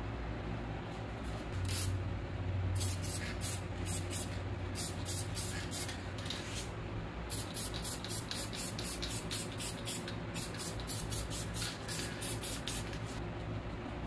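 Aerosol spray paint can fired in many short, quick hisses, about two or three a second, in two runs with a short break around the middle.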